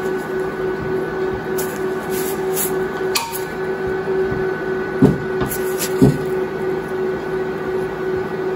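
Steady workshop hum, with a few light clicks and two dull knocks about five and six seconds in, as locking pliers are clamped and worked on a seized, weld-built-up blade screw in a cast-iron mower bottom blade block. The screw stays stuck.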